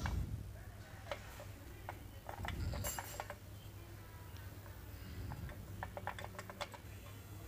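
Small metallic clicks and taps from hands working the brake-shoe hold-down lock and spring on a Mahindra Bolero's rear drum brake backing plate, with a run of quick clicks about five to seven seconds in. A dull knock comes at the start and another near three seconds in.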